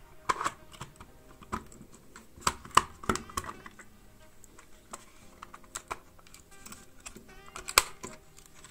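Sharp plastic clicks and taps as the body shell of a Roco BR101 model locomotive is pushed onto its chassis and snapped into place, in a cluster between about two and three and a half seconds in and one loud click near the end.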